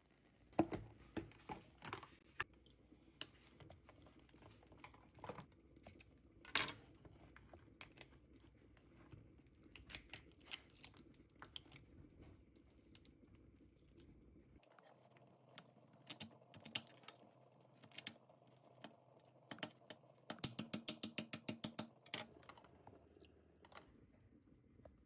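Kitchen work sounds: scattered light clicks and knocks of utensils, then near the end a quick, even run of about a dozen taps.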